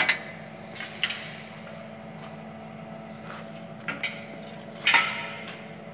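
A handful of short, sharp metallic knocks and clicks from handling around an iron door frame, the loudest about five seconds in, over a steady electrical hum.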